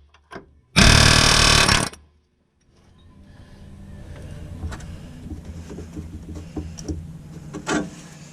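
Harbor Freight long-barrel pneumatic air hammer with a chisel bit firing one short burst of about a second against a GM rivet, a rapid buzzing hammering. After it comes a low steady hum with faint scattered clicks.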